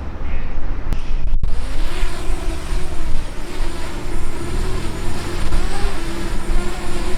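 Wind buffeting the microphone with a low rumble. After a short break about a second and a half in, a DJI Mavic Mini's propellers hum steadily, the pitch wavering a little as the drone hovers in gusty wind.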